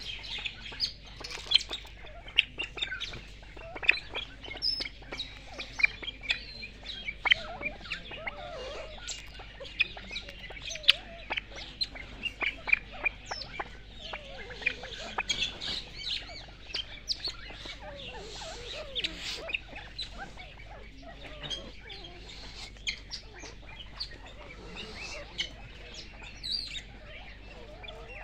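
Birds chirping and calling: a busy, continuous run of short, sharp high chirps, with a few soft clucks among them.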